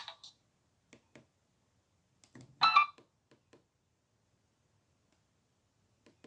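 Nokia 6111 mobile phone between tones: the tail of a ringtone cuts off at the start, followed by a few faint button clicks. A little under three seconds in there is one short electronic beep from the phone, and then a couple more faint clicks.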